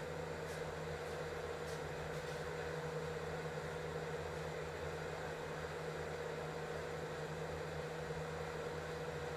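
Steady low hum of background room noise, with a few faint light scrapes in the first couple of seconds as roasted wheat flour is pushed with a wooden spatula out of a steel pot into a ceramic bowl.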